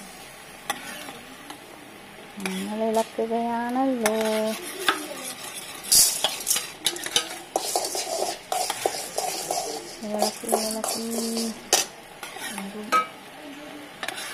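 Metal spoon stirring and scraping a simmering beetroot juice and coconut oil mixture in a nonstick pan, with repeated clinks and scrapes against the pan over a soft sizzle as the mixture reduces to a thick paste.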